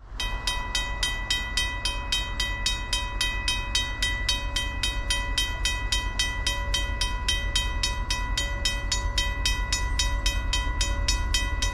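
Griswold Signal Company No. 52 railroad crossing bell ringing: its hammer strikes the gong in a fast, even rhythm of about four strokes a second, each strike ringing on at the same pitch. A low rumble lies underneath.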